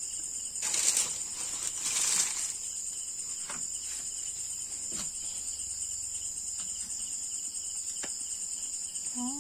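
Night insects, crickets, chirring in a steady high drone, with two brief rustling noises about one and two seconds in and a few faint clicks.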